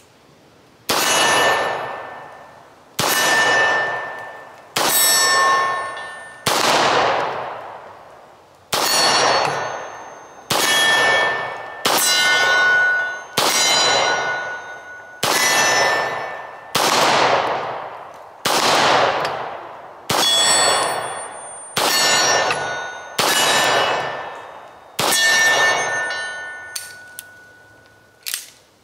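About fifteen Beretta 92FS pistol shots at a slow, even pace, roughly one every one and a half to two seconds. Each shot hits a steel target plate, which rings out and fades over about a second. A few faint clicks come near the end.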